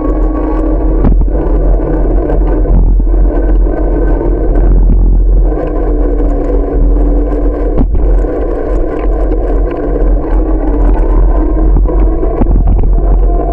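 Wind rushing over the microphone of a camera on a moving bicycle, with a steady hum underneath and two sharp knocks, about a second in and again near eight seconds.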